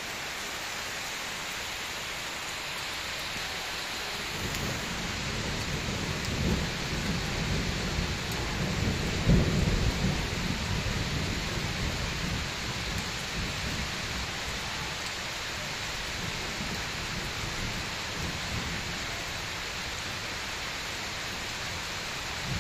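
Steady rain falling, with a long low roll of thunder that builds about four seconds in, is loudest near the middle and dies away.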